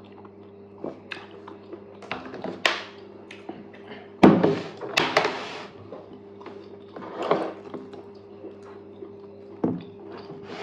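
Eating noises and knocks against dishes: scattered short knocks and wet noises, the loudest a thump about four seconds in, over a steady low electrical hum.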